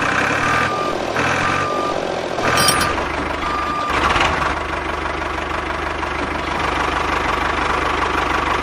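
Engine running steadily, with a reversing alarm beeping about once a second, four times, over the first few seconds.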